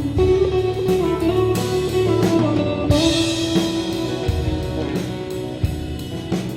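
Indie rock band playing an instrumental passage: guitars ringing out sustained notes over a drum kit, with no vocals. The playing eases off in loudness toward the end.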